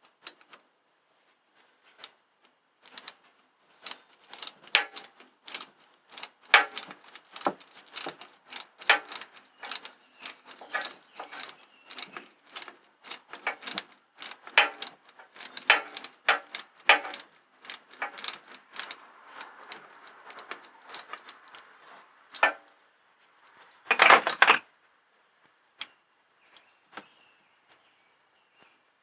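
Hand wrench working a bolt off a tractor exhaust manifold, giving a long run of irregular metal clicks and clinks, then a short louder metallic clatter near the end.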